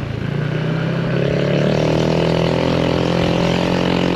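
Yamaha NMAX 155 V2 scooter's single-cylinder engine, breathing through an aftermarket exhaust, pulling under throttle while riding. About a second in, its note rises a little, then holds steady over a constant rush of noise.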